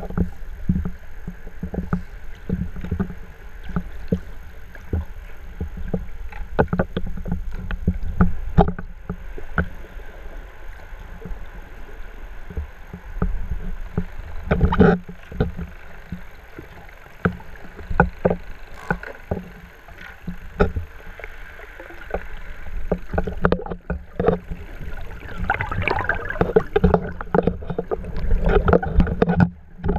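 Muffled water sloshing and knocking around an underwater camera carried by a swimming snorkeler, with frequent irregular clicks over a low rumble. The splashing grows busier near the end.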